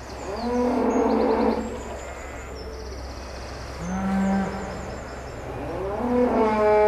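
Cattle mooing: three long calls, the first about half a second in, the second around four seconds in and the third near the end.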